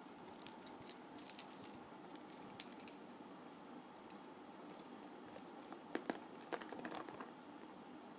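Small metal bag charm jingling and clinking as it is handled and clipped onto a handbag's hardware: scattered light clicks, the sharpest about two and a half seconds in, and a quick cluster of clinks near six to seven seconds.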